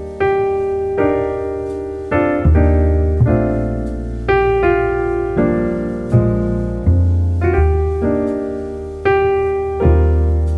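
Background piano music: slow chords and single notes, each struck and left to fade, over low bass notes.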